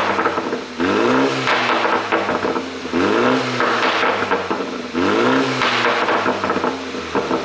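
BMW G20 330i's turbocharged 2.0-litre four-cylinder blipped three times, about two seconds apart. Each rev rises and falls quickly in pitch, with exhaust pops crackling on the overrun from a pop-and-crackle ECU tune.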